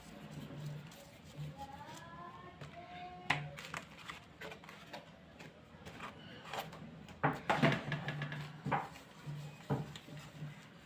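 Irregular light clicks and knocks of objects being picked up and set down on a tabletop while wall-putty clay is worked by hand, thickest in a quick cluster in the second half.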